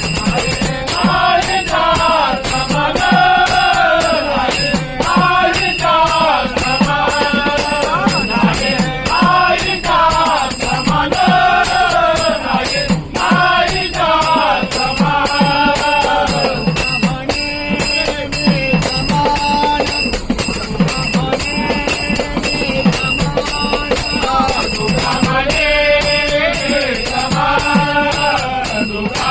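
Marathi devotional bhajan: a solo voice sings a sliding melody over a steady drum beat, with small hand cymbals jingling throughout.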